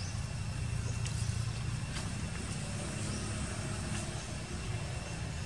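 Steady low rumbling background noise, like distant traffic, with a faint steady high tone and a few faint clicks.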